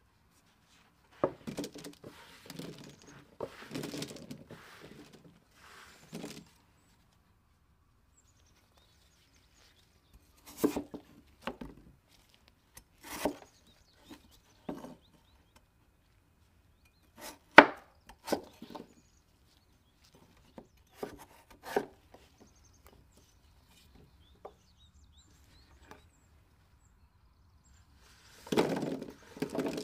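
A knife chopping raw potatoes on a wooden cutting board: single sharp chops, spaced a second or more apart. At the start and near the end there are rustling clatters of cut vegetable cubes tumbling onto a parchment-lined baking pan.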